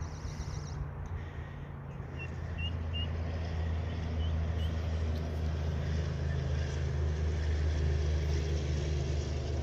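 A motor engine runs steadily with a low hum that grows louder from about two seconds in. A few short, high bird peeps sound over it.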